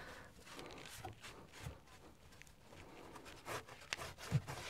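Damp sponge wiping grout off ceramic wall tiles: faint rubbing and scraping strokes with a few small knocks, the knocks a little louder near the end.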